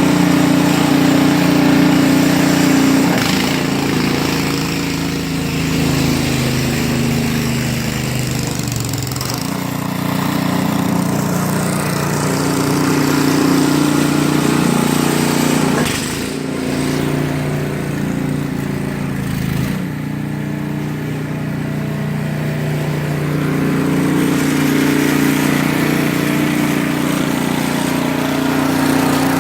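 A small engine running steadily, its note shifting several times.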